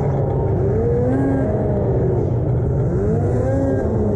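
Snowmobile engine running at low speed with a steady low drone, its pitch rising and falling in repeated revs about every two seconds.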